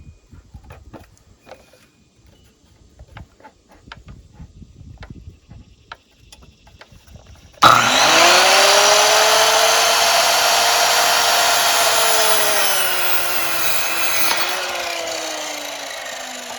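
Light scattered knocks and clicks of lumber and tools being handled, then, about seven and a half seconds in, an electric power saw starts suddenly and cuts wood. Its motor whine then slowly falls in pitch and fades as the saw winds down.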